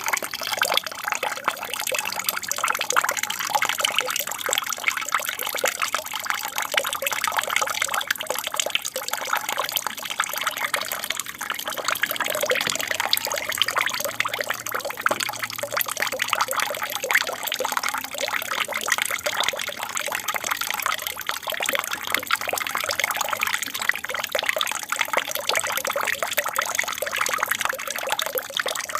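Water splashing and trickling steadily down a small aquarium waterfall.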